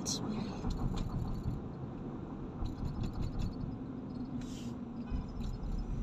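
Steady low road and engine noise inside a moving car's cabin, with a few faint clicks and a short hiss about four and a half seconds in.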